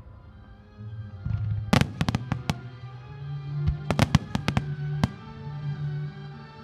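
Fireworks bursting in a rapid string of sharp cracks just under two seconds in, another quick cluster around four seconds and a single crack near five, over sustained music.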